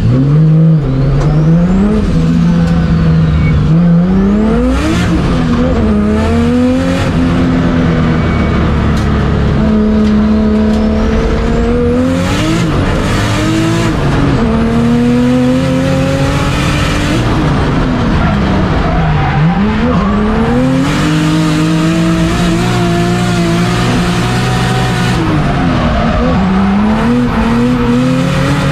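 Nissan S14 drift car's 2JZ straight-six heard from inside the cabin, revving up and dropping back again and again through gear changes and throttle lifts. Stretches of tyre squeal come in as the car slides sideways.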